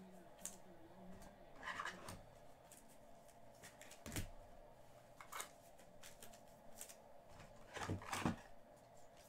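Soft, scattered rustles and clicks of a boxed trading-card set being opened and its cards handled, with a louder pair of rustles near the end.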